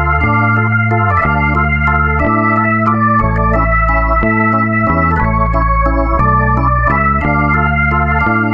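Background music: sustained organ-like keyboard chords with held bass notes, changing every half second to a second.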